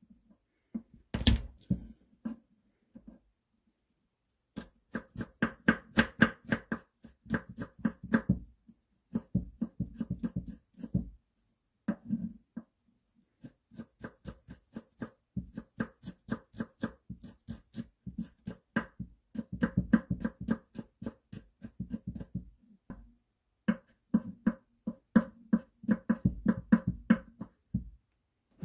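Kitchen knife rapidly chopping garlic cloves on a thick wooden cutting board: quick knocks, about five a second, in runs with brief pauses, the board ringing a little under each stroke. One louder single knock comes about a second in.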